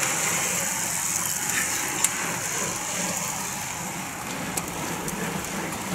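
A pack of road-racing bicycles riding past: a steady whir of tyres and drivetrains with scattered sharp clicks.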